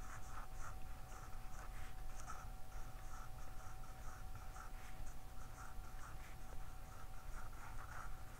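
Pencil writing on paper: faint scratching strokes in an irregular rhythm of about two or three a second as joined cursive letters are written.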